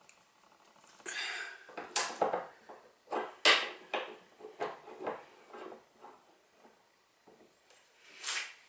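Tools and metal parts being handled: a run of irregular clicks, clacks and knocks. There is no impact wrench hammering.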